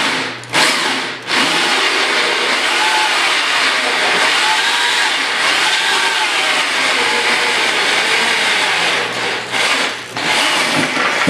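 Corded electric drill with a large bit boring through a steel flat bar, following a pilot hole. Two short bursts at first, then a steady drilling run with a couple of brief dips near the end.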